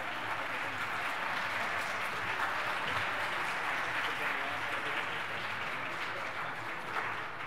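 Audience applauding, a steady sustained round of clapping from a large hall of seated guests that eases off near the end.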